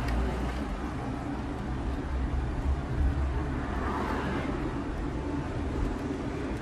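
Inside a Fiat city car with the window open: a steady low rumble with a faint hiss of light rain. Traffic swells past about four seconds in.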